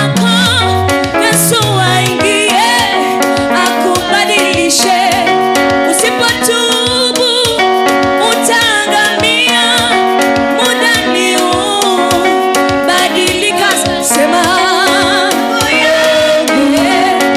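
Swahili gospel worship song: voices singing with vibrato over steady keyboard accompaniment.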